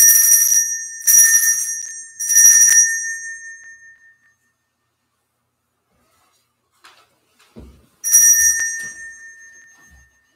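Altar bell (Sanctus bell) rung three times in quick succession, then once more about eight seconds in, each ring bright and high and fading away. It marks the elevation at the consecration of the Mass. A few soft knocks come near the end.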